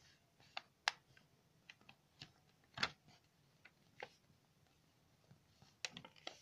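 A sheet of paper being handled and folded by hand: scattered short crackles and taps as it is bent and creased, with a quick cluster of them near the end.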